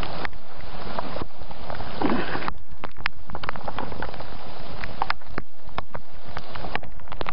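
Heavy rain falling steadily, with many individual drops striking close by as sharp clicks.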